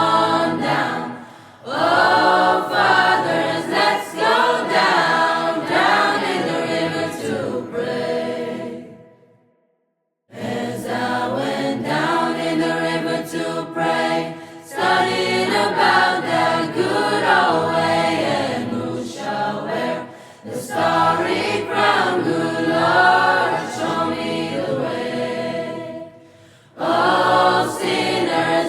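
Choral singing, several voices together, with a break of about a second near the middle where the sound drops out completely.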